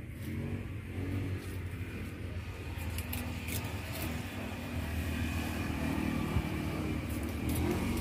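A motor engine running steadily and gradually getting louder, with a few sharp clicks over it.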